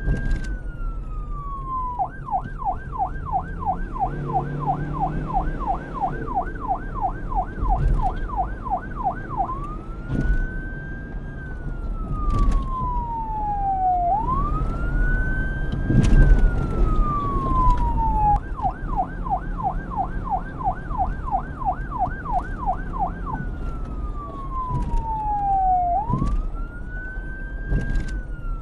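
Police siren alternating between a slow wail, rising and falling over about four seconds, and a fast yelp of about three sweeps a second, which comes in twice. A low rumble runs underneath.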